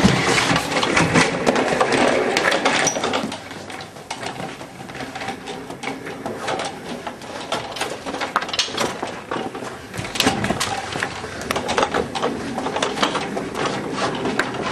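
Office chair casters rolling and rattling over a hard floor, with many small clicks and knocks. The clatter is louder for the first few seconds, then goes on more quietly.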